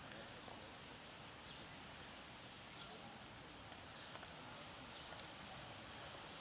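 A small bird repeating a short, high, falling chirp about once a second, faint over a steady outdoor background hiss.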